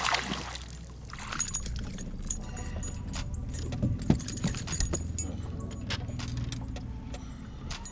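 A bass being landed on a boat deck: splashing near the start, then a flurry of knocks, clicks and rattles as the fish flops on the deck among the tackle, the loudest knock about four seconds in, over a low steady hum.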